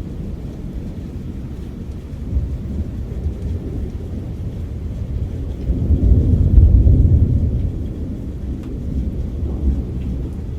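Rolling thunder: a deep rumble that builds about two seconds in, is loudest a little past the middle, then dies back down.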